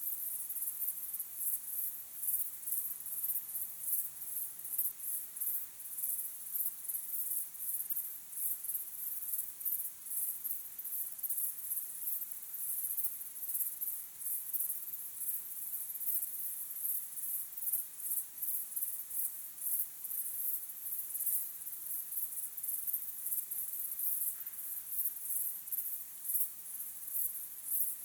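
Crickets chirping in a continuous chorus, a very high-pitched, rapid pulsing that does not let up.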